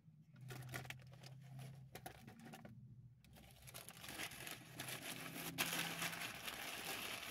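Paper sandwich wrapper crinkling and rustling as it is folded up by hand. Scattered crackles at first, growing denser and louder after about three seconds.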